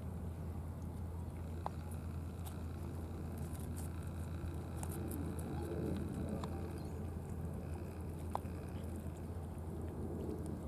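Cats chewing and eating wet cat food, faint scattered small clicks and smacks, over a steady low background rumble.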